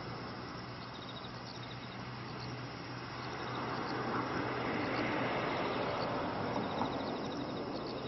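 Steady rumble and low hum of trains in a rail yard, growing louder about halfway through, with faint high rhythmic chirping over it.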